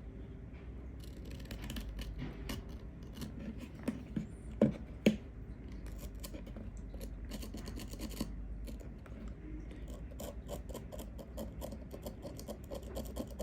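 Small clicks and scratching of fingers and a tool working on a GoPro's plastic body and replacement screen as its edges are pressed and adjusted into place, with two sharper clicks about four and a half and five seconds in.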